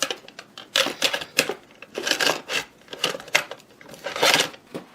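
Irregular clicks and clattering of small hard objects being handled and rummaged through, with a couple of longer rattling scrapes about two and four seconds in.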